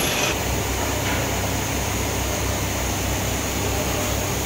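The wood lathe's 2 HP, 1440 rpm electric motor running with a steady low hum.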